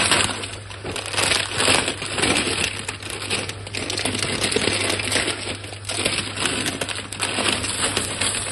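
Dry macaroni pouring out of a crinkling plastic bag into a pan of sauce, a run of many small ticks and rustles from the pasta and the bag.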